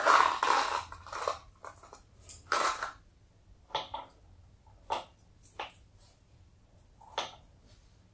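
Small steel balls rattling together in a small cup, then single short sharp clicks about once a second as balls are handled one at a time on a wooden counting board.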